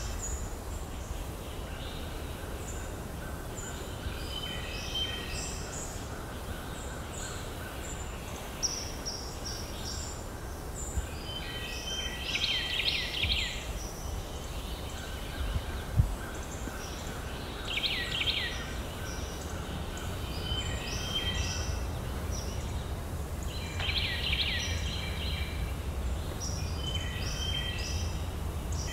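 Small songbirds chirping throughout, with a louder rapid song phrase of about a second that comes three times, roughly every six seconds, over a steady low outdoor rumble. A single short knock sounds a little past the middle.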